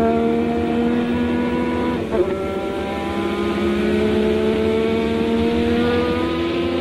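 Renault EF1 1.5-litre turbocharged V6 of a 1983 Renault RE40 Formula One car at full throttle, heard onboard. The revs climb steadily, drop back with a short click about two seconds in as it shifts up, climb again and dip once more near the end.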